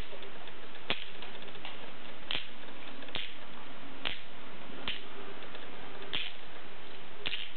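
A handheld rattle shaken in short, sharp shakes, about one a second, while a dog licks and slurps in response.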